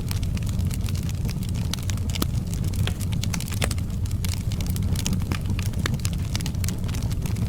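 Wood fire burning in a fireplace: frequent irregular sharp crackles and pops from the logs over a steady low rumble of the flames.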